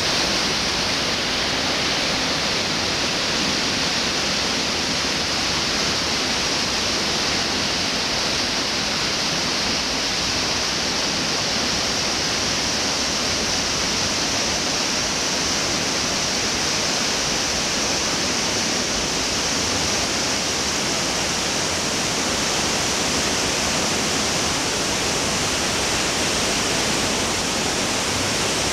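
River water cascading over rocks through a narrow rock gorge: a steady, unbroken rush of white water.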